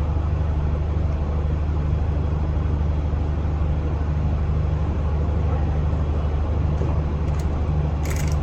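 Steady low mechanical hum with an even hiss, unchanging throughout, with two brief sharp clicks near the end.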